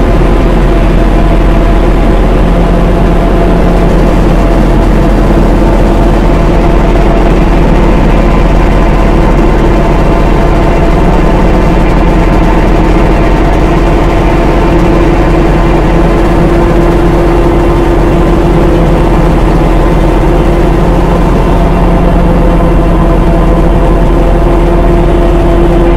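Loud, steady dark ambient drone: a deep rumble with several held tones layered above it, one in the middle register strongest, under a hiss-like haze of noise.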